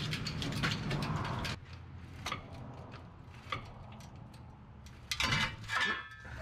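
Porto-Power hydraulic hand pump being worked to push a truck axle back: a quick run of mechanical clicking for about the first second and a half, then a few scattered clicks and a cluster of metal knocks near the end.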